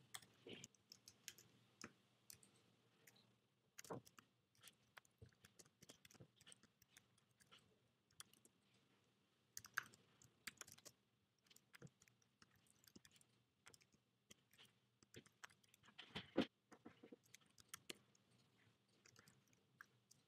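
Faint computer keyboard typing: irregular soft key clicks, with a few louder clicks about 4, 10 and 16 seconds in.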